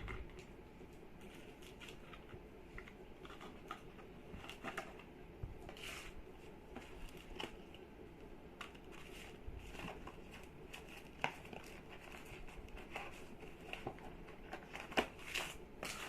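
Firecracker boxes and paper packets being handled and set down: scattered light clicks, taps and crinkles of cardboard and paper, with a few sharper knocks near the end.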